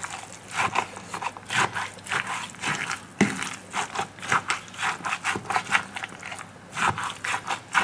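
Wooden spatula stirring a raw ground-pork mixture in a glass bowl: repeated scraping strokes, about two a second.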